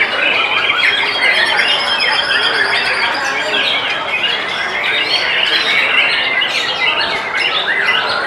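White-rumped shama singing in a contest cage, a loud, varied string of whistles, chirps and trills that overlaps with a dense chorus of other songbirds singing at once.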